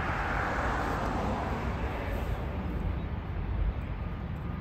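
Airbus A321neo's Pratt & Whitney PW1100G geared turbofan engines at takeoff thrust, heard from behind as the jet rolls away down the runway. The jet roar fades over the first couple of seconds, leaving a low rumble.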